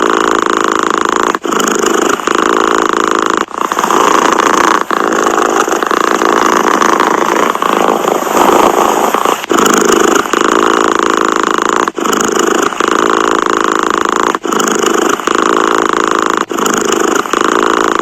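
Domestic cat purring close up, a steady rough purr broken by a short pause every few seconds.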